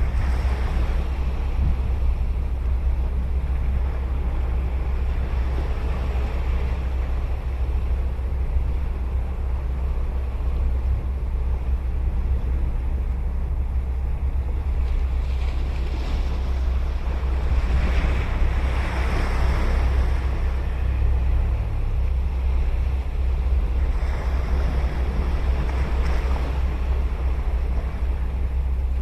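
Ocean waves breaking and washing up the shore in slow surges, the biggest about halfway through, over a steady low rumble of wind on the microphone.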